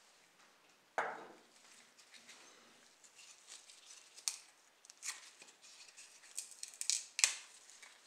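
Model car parts handled on a tabletop: a sharp knock about a second in, then scattered light clicks and scrapes of small plastic parts, the loudest near the end.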